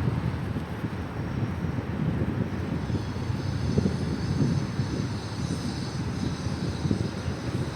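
Wind buffeting the microphone of a moving bicycle, a steady low rumble, with a faint high whine joining about three seconds in.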